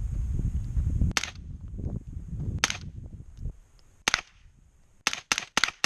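AR-15 with a CMMG .22 conversion kit firing .22 Long Rifle: three shots about a second and a half apart, then four fast shots in a row near the end. Low wind rumble on the microphone during the first half.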